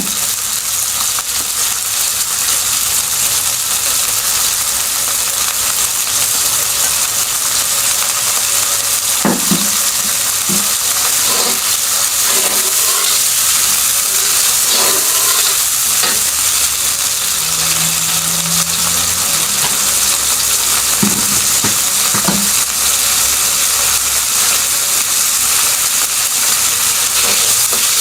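Food sizzling steadily as it fries in a pan, with scattered scrapes and clicks as it is stirred.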